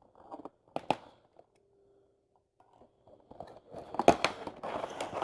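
Cardboard toy box and plastic packaging being opened by hand: a couple of sharp clicks about a second in, then continuous crinkling, crunching and snapping from about three seconds in.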